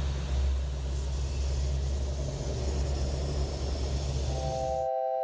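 Steady low drone and hiss of a C-130 Hercules cockpit in flight, the turboprop engines running. Near the end a brief steady chord of tones sounds over it, and then the drone cuts off.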